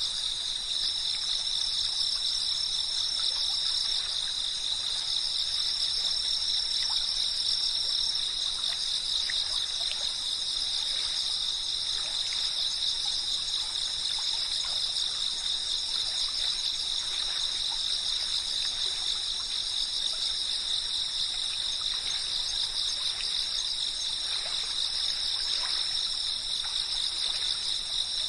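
Dense chorus of chirping insects making a continuous high-pitched drone that stays steady throughout.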